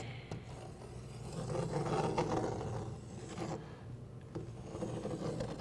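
A large compass scribing a circle on a plywood panel, its point scraping softly across the wood as it is swept around. The scraping is loudest in the middle stretch, over a faint steady low hum.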